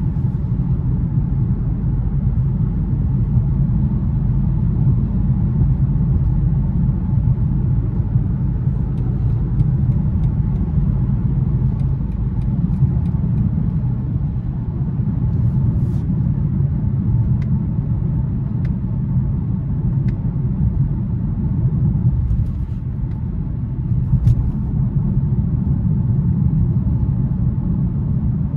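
Steady low rumble of a 2021 BMW 530i xDrive cruising at highway speed, heard from inside the cabin: tyre, road and engine noise with no change in pace.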